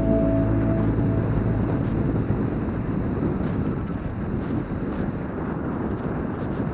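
Motorcycle riding noise: wind rushing over the microphone with engine and road noise underneath, steady and without clear engine pitch. Background music fades out in the first second.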